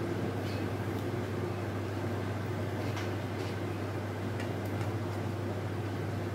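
Steady low hum with an even room noise over it, like a running fan, and a few faint light ticks.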